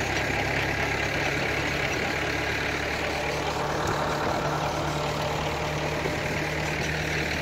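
Farm tractor engine running steadily at low speed, a low, even drone with no changes in pitch.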